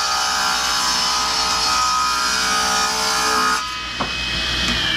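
Grizzly G0715P 10-inch hybrid table saw ripping a wooden board along the fence, the blade cutting steadily. About three and a half seconds in, the cutting noise drops off as the board clears the blade, leaving the blade spinning on with a lighter, steady whine.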